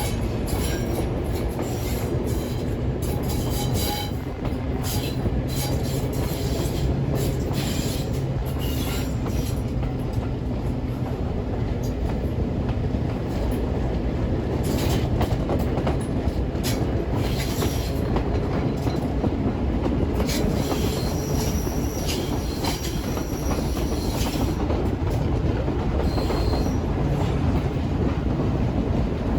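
Heritage railway train running on the line: a steady low rumble with wheels clicking over the rail and short metallic squeaks, and a high thin wheel squeal about two-thirds of the way through.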